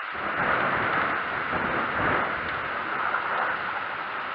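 Thunder rumbling low for about three and a half seconds, starting right at the beginning and then fading, over a steady hiss.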